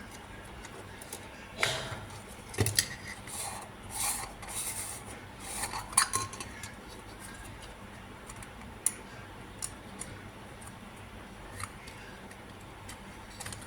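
Small hard objects being handled: a cluster of sharp knocks, clicks and scrapes in the first six seconds, then a few single clicks spaced a second or so apart.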